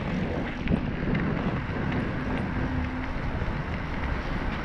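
Steady wind rushing over the microphone of a bicycle-mounted camera while riding along a paved road.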